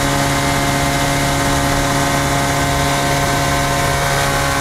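The Rotax engine and propeller of an Avid Flyer light aircraft, heard from inside the cockpit during slow flight. It makes a steady, even drone with airflow noise, and holds constant power throughout.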